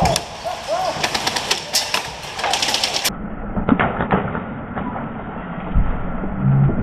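Airsoft guns firing short strings of sharp snapping shots. About three seconds in the sound turns duller, and a few more shots follow.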